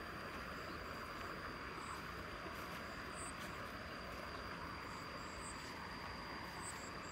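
Steady outdoor ambience beside a rice paddy: an even hiss with a constant thin high tone, typical of an insect chorus, and a few short high chirps scattered through it.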